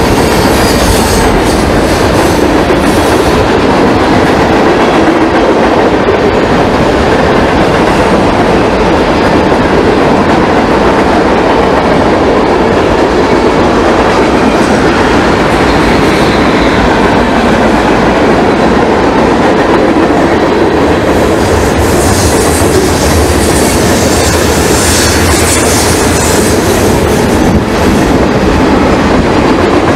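Norfolk Southern mixed freight train rolling past close by: a loud, steady rumble and clatter of steel wheels over the rail joints as the cars go by. The sound gets a brighter, hissing edge between about 22 and 27 seconds in.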